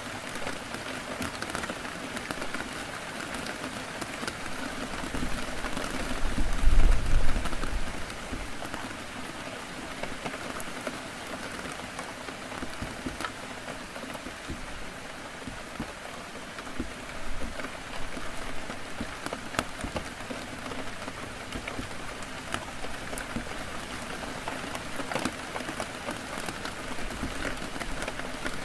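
Heavy rain on a window: a steady rush of rain with scattered sharp drop ticks. A low rumble swells about six seconds in and fades out about two seconds later.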